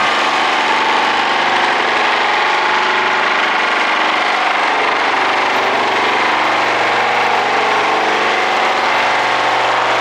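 Vibratory pile hammer driving a steel pile: a loud, steady mechanical drone with a constant low hum and no separate hammer blows.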